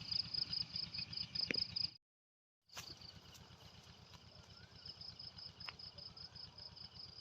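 Insects chirping outdoors in a steady, high, rapid trill of about eight pulses a second, with a low pulsing hum beneath. The sound cuts to silence for under a second about two seconds in, then resumes.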